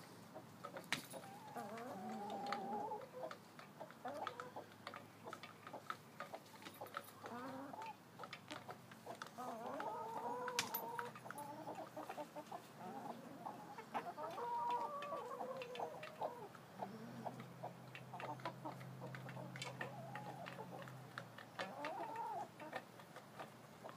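Laying hens clucking off and on in short, wavering calls, with scattered sharp clicks.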